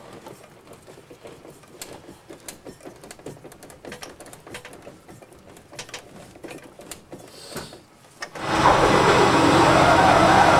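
Faint, irregular clicking and knocking, then about eight seconds in the Bushmaster Trimotor's propeller engine comes in suddenly and loudly and runs steadily, heard from inside the cabin.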